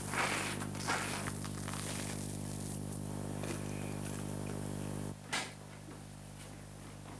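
A table knife scraping spread across a slice of bread, two strokes in the first second, over a steady low hum. The hum cuts off abruptly about five seconds in and is followed by a brief knock.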